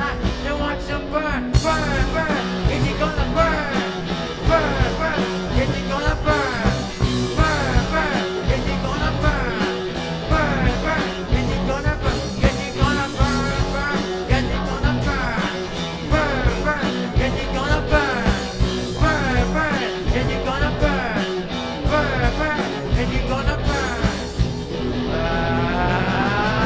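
Live rock band playing: electric guitars, bass guitar and drum kit driving a steady beat, with a singer's voice over the band. Near the end a high tone rises in pitch.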